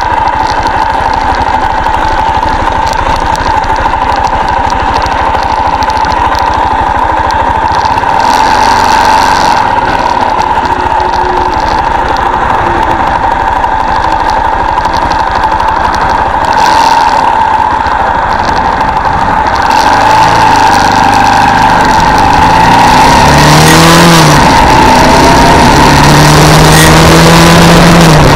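Armstrong MT500 military motorcycle's single-cylinder Rotax engine running under way, heard from on the bike with wind rush. In the last few seconds it gets louder and the engine note climbs, drops briefly at a gear change, and climbs again as the bike accelerates.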